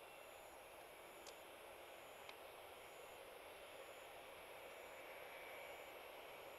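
Near silence: a faint, steady outdoor night hiss. A faint high-pitched pulse repeats slightly less than once a second, and two faint ticks fall about a second apart near the start.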